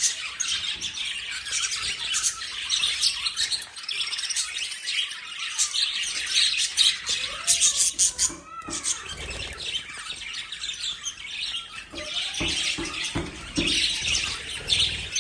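Lovebirds chirping and squawking in a dense, continuous chatter.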